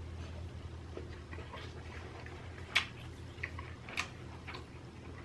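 Eating sounds: a mouthful of inari sushi (vinegared rice in fried bean curd pouches) being chewed, with scattered small mouth clicks and two sharper clicks about three and four seconds in, over a low steady hum.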